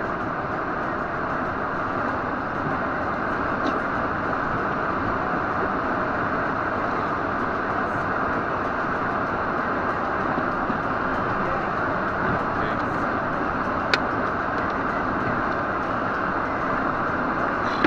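Steady road and wind noise inside a moving car, with a single sharp click about fourteen seconds in.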